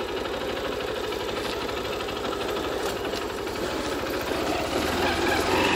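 Vehicle engine running steadily at low revs while moving slowly, with a rapid even pulsing that grows slightly louder near the end.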